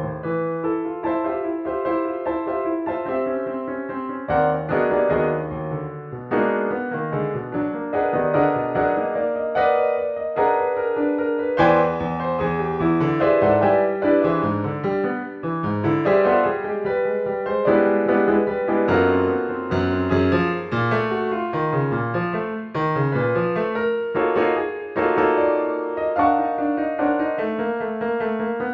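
Piano playing the reduced score of an atonal chase melody: phrases that climb gradually into a higher register, joined by legato eight-note runs and broken up by accented chords and stabs.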